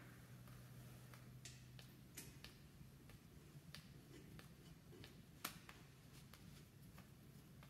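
Near silence with faint, scattered small clicks of a hand tool working at a Jeep's rear brake caliper, one sharper click about five and a half seconds in.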